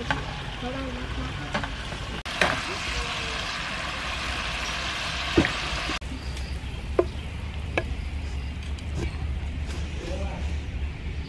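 Chicken, bell peppers and onion sizzling in a hot stir-fry pan, with a metal spatula clicking and scraping against the pan now and then. The sizzle is loudest in the first half and drops away suddenly about six seconds in, after which only scattered clicks of the utensil on the pan and bowl remain.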